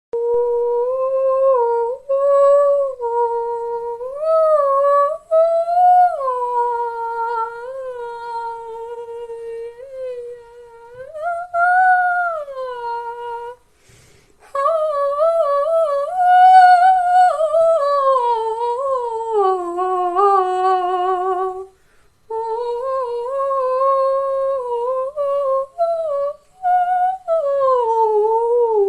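A single high voice singing a slow, wordless melody, unaccompanied, with warbling ornaments and vibrato. The phrases are broken by two short pauses, about halfway through and again about three-quarters through.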